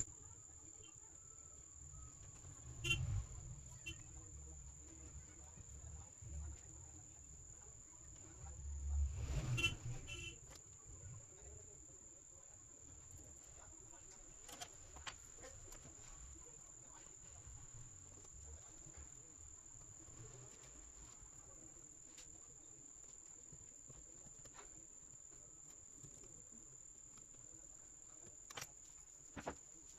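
A faint, steady high-pitched electronic whine, with light handling noises and a couple of brief louder knocks about three and ten seconds in.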